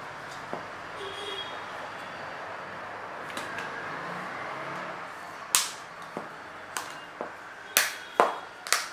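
Plastic back cover of a Lava Captain N1 feature phone being pressed onto the handset: after a stretch of faint background noise, a run of sharp snapping clicks starts about halfway in, as the cover's clips lock into place.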